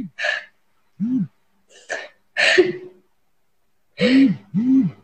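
A woman sobbing: a string of short gasping, catching breaths and brief broken cries, two cries close together near the end.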